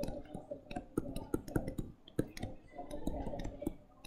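Stylus tip tapping and clicking on a tablet screen while handwriting, a few sharp clicks a second at uneven spacing.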